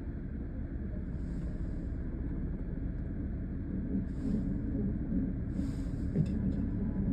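Vehicle running with a steady low rumble, a faint steady high whine and a few short hissing bursts, the weird noise blamed on the fuel pump.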